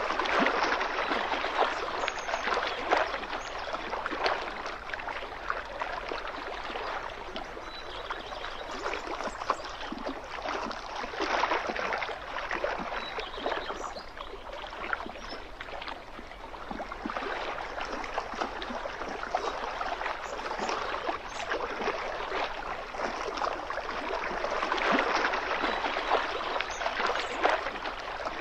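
Small waves lapping at a lake shoreline, a continuous splashing that swells and eases every several seconds.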